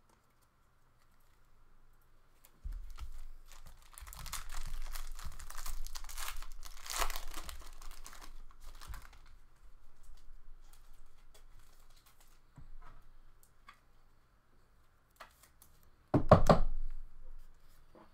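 A hockey card pack wrapper being torn open and crinkled for several seconds, followed by lighter handling rustles. Near the end comes one sudden loud thump.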